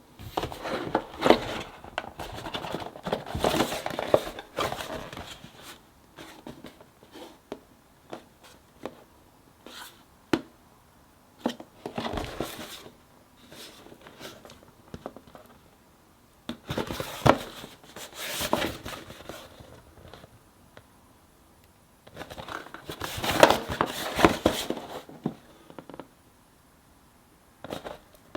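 Hands handling a children's cardboard jigsaw puzzle and its pieces: spells of crinkling and rustling with sharp clicks and taps, the longest in the first five seconds and others about halfway and near the end.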